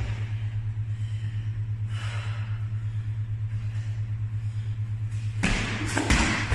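A steady low hum, then about five seconds in a loud crash followed by a second thud as a person falls hard in a gym.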